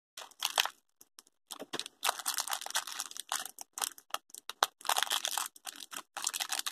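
A small crinkly yellow plastic blind-bag wrapper being torn and pulled open by hand, with irregular crinkling and rustling.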